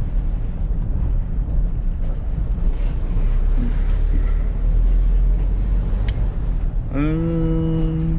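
Steady low engine and road rumble of a van being driven, heard from inside the cab. Near the end there is a single held pitched tone lasting about a second, rising briefly at its start.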